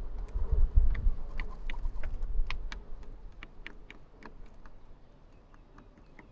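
A run of sharp, irregular clicks or taps, about three or four a second, thinning out after about four seconds, over a low rumble that fades after the first three seconds.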